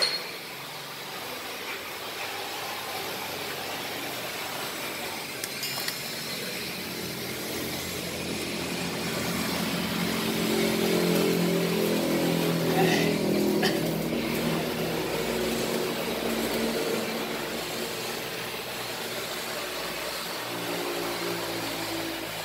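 A vehicle engine running over a steady background noise. It grows louder about eight seconds in, is loudest around the middle, and fades again, with a weaker rise near the end.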